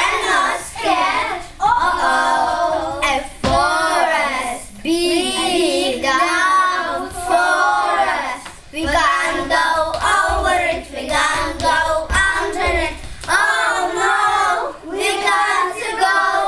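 A group of young children singing together in unison, in short phrases one after another.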